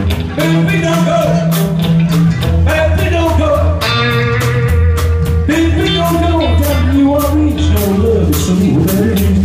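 Live three-piece band playing a blues-rock number: electric guitar over a walking bass line and drums keeping a steady beat.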